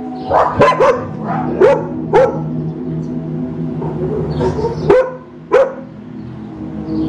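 Dog barking: about seven short, sharp barks, three in quick succession at the start, then single barks spaced out over the following seconds.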